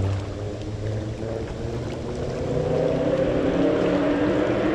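Cars street racing on a road: several engines revving, their note getting stronger and louder about halfway through.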